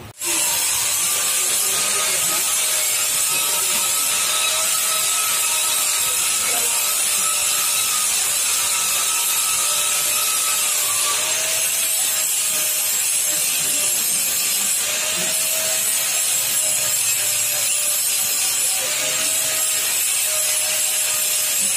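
Power tool grinding stainless steel: a loud, steady hissing rasp over a motor whine that wavers in pitch, starting abruptly.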